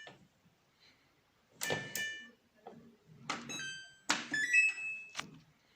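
Samsung WF1600WCV washing machine's control panel beeping as its buttons are pressed: two clicks with short electronic beeps about two seconds in, then a quick run of tones stepping in pitch, and a louder click followed by a short rising chime of a few notes.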